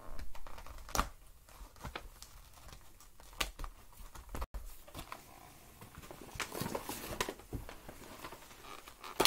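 Scissors snipping the plastic ties that hold a Barbie doll in its box, heard as a few separate snips and clicks. Cardboard and plastic packaging crinkles and rustles in between.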